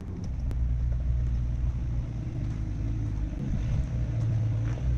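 Jeep Wrangler engine idling, a steady low rumble.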